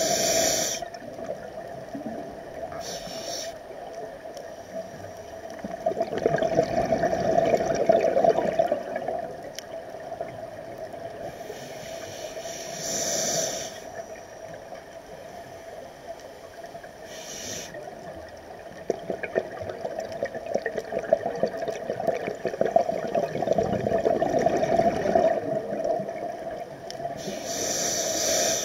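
Scuba diver breathing through a regulator underwater: short hissing inhalations, and between them two long rushes of exhaled bubbles, with a steady hum underneath.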